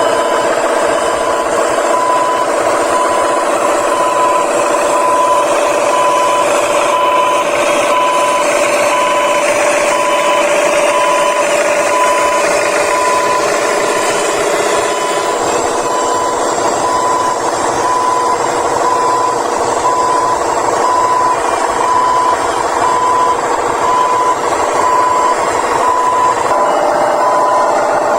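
Remote-control construction vehicles running: a steady whir of small motors and gears, with a regular reversing-alarm beep repeating throughout.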